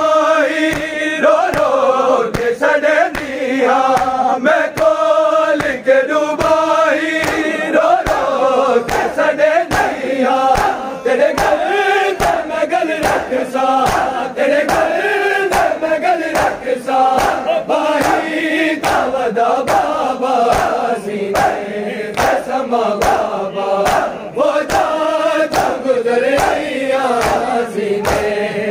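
A group of men chanting a noha, a Shia mourning lament, in unison while many bare hands slap on bare chests (matam), the slaps keeping a steady beat under the singing.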